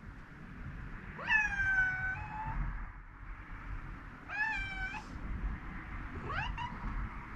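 A young house cat meowing three times: a long meow about a second in, then two shorter ones, the last rising in pitch. These are insistent calls to wake a sleeping owner.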